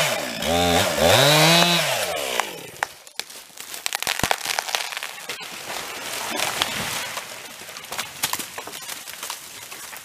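Gas chainsaw revving up and down as it cuts through a tree trunk, stopping about three seconds in. Then comes a run of cracks and snaps of wood and branches as the felled tree goes over and comes down.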